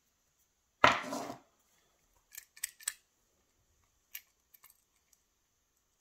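Small steel tools clicking and scraping against a heavy steel padlock as its core is worked out. One sharp metallic click with a brief scrape comes about a second in, followed by a few light ticks.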